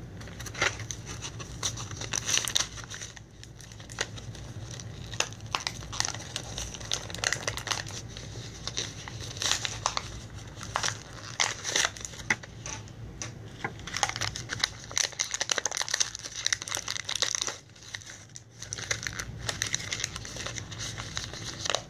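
A Littlest Pet Shop toy blister pack being opened by hand, its plastic and card crinkling and tearing in dense, irregular crackles, with a short lull near the end.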